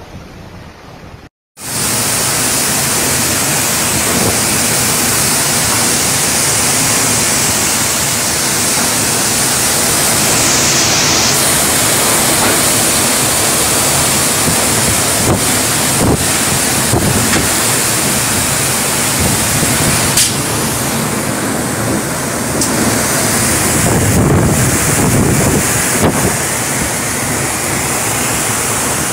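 Typhoon-force wind and heavy rain, a loud steady rushing that swells and eases in gusts. It cuts in suddenly after a brief gap about a second and a half in.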